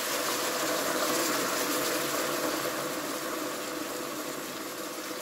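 Sautéed chicken pieces in a hot pan sizzling as water is added, the hiss swelling about a second in and then slowly dying down as the pan cools.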